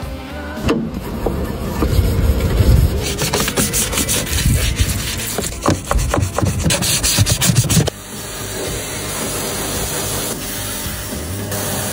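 Rough, repeated scraping and rasping strokes, then about eight seconds in a sudden change to a steady hiss.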